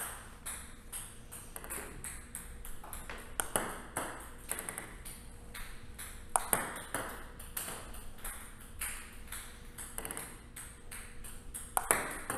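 Table tennis deadspin pendulum serves being played over and over: many sharp clicks of the plastic ball striking the racket and bouncing on the table, in an irregular run.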